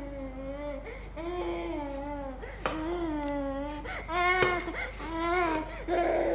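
A dog whining and howling: a run of about seven drawn-out cries in a row, each bending up and down in pitch, the loudest and highest one about four seconds in.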